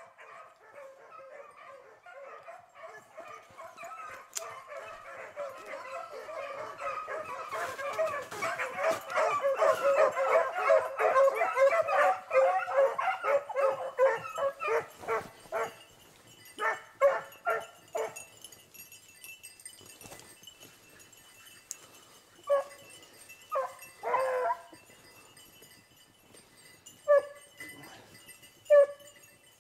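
A pack of beagles baying: many high, overlapping yelps that build to a loud chorus about ten seconds in, then thin out to a few separate yelps and yips.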